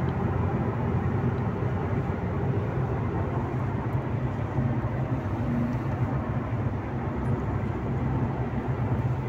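Steady road and engine noise inside a Ford car's cabin, cruising at highway speed.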